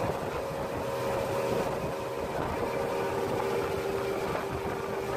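Motorboat under way: a steady engine drone with a steady whine, mixed with the rush of wind and water.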